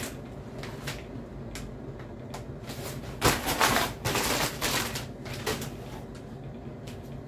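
Brown kraft-paper packaging rustling and crinkling as it is handled and opened, in several short bursts, loudest about three to five seconds in.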